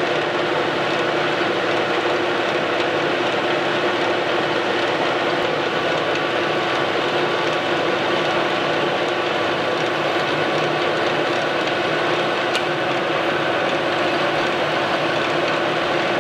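Metal lathe running steadily with a constant hum, taking a light turning cut on a new shaft. There is one faint tick near the end.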